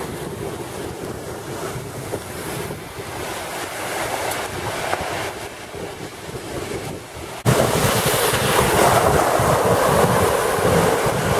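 Floodwater gushing and splashing out of a breached stormwater catch basin and spilling over its stone-block wall, the basin overwhelmed by flash-flood runoff. The rush turns suddenly much louder about seven and a half seconds in. Wind buffets the microphone throughout.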